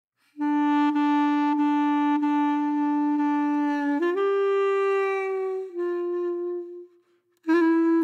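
Background music: a single woodwind holding long notes, the first for over three seconds, then two shorter ones. A short pause comes near the end before the melody resumes.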